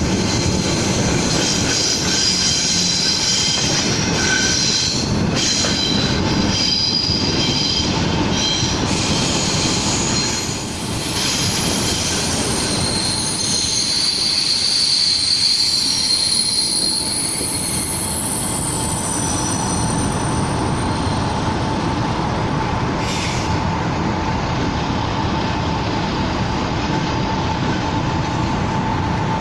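Czech Railways class 460 electric multiple unit running on the rails, with continuous wheel and track noise and high-pitched wheel squeal. A steady tone runs through the second half, and there is a brief dip in the noise about ten seconds in.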